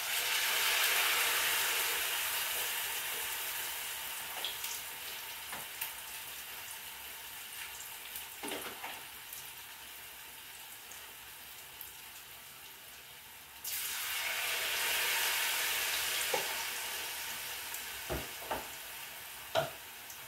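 Pieces of tuna fish are lowered into a pot of hot oil, which breaks into a sizzle that slowly dies down. About fourteen seconds in, more fish go in and the sizzle surges again. A few short clicks and knocks come from a utensil at the pot.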